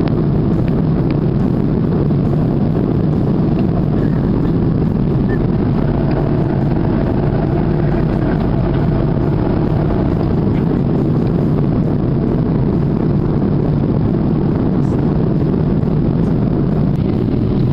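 Steady airliner cabin noise in cruise: the even, deep rush of the jet engines and airflow over the fuselage, heard from inside the cabin by the window.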